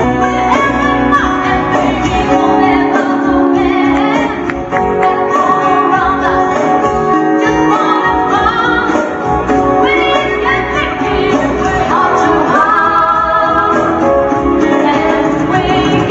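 A woman's voice singing a song live over backing music.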